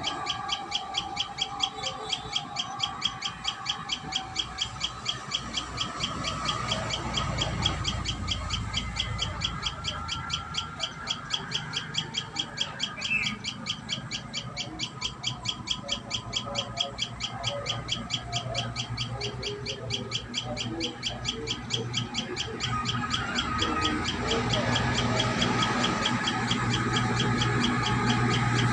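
Birds calling over a fast, even pulsing chorus that runs throughout; a low hum builds up near the end.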